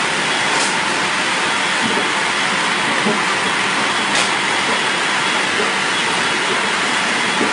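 Steam-heated roller veneer dryer running: a steady, even hissing machine noise, with a couple of faint ticks.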